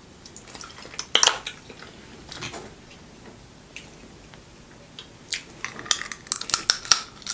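Snow crab leg shells being cracked and picked apart by hand while eating: a sharp crack about a second in, then a run of quick cracks and clicks from about five seconds in.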